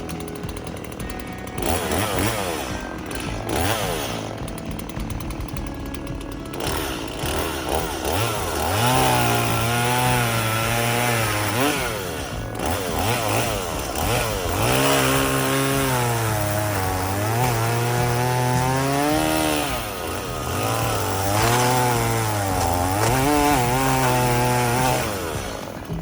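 Two-stroke chainsaw running and cutting. The engine is revved up and dropped back several times, holding high for a few seconds at a time.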